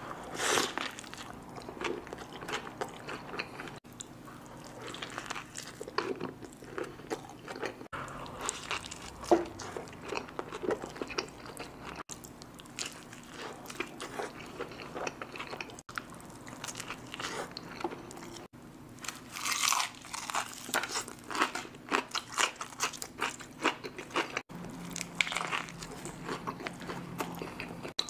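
Close-miked biting and chewing of a burger: crunchy bites followed by steady chewing, with louder bursts of crunching a few times and several abrupt breaks where short clips are spliced together.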